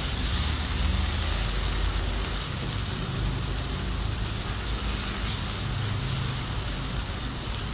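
Onion-and-spice masala frying in oil in a non-stick pan, a steady sizzling hiss, while a silicone spatula stirs it. It is the masala being fried down after a splash of water.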